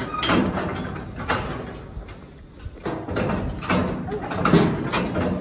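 Steel cattle-yard gates and crush rattling and clanging: a string of irregular metal knocks and bangs as a cow is held in the crush.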